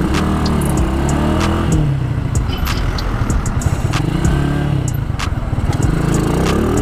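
Motorcycle engine running under way, its pitch falling and rising several times as the rider rolls off and accelerates, over a constant low wind rumble.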